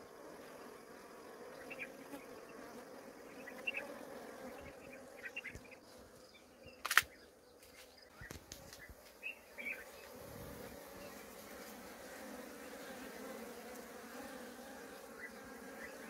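Honeybees buzzing around the hive entrance: a faint steady hum, with one sharp knock about seven seconds in.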